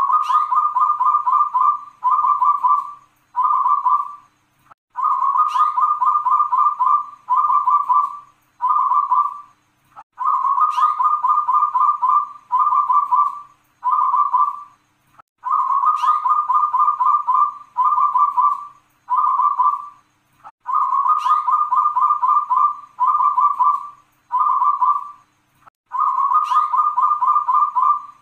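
Local zebra dove (perkutut) cooing its song, a phrase repeated about every five seconds: one long stuttering coo that opens with a brief high note, then three shorter 'kung' coos.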